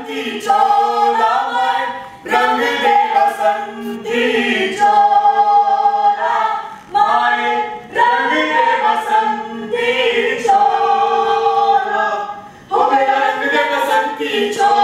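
A small group of stage actors, men and women, singing together without instruments, in phrases a few seconds long with long held notes.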